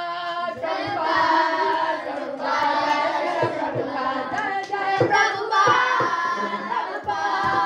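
A group of children singing together in unison, with scattered hand claps.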